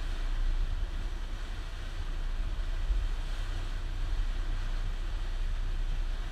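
Steady low drone of a motorboat's engines underway, with a haze of wind and water noise.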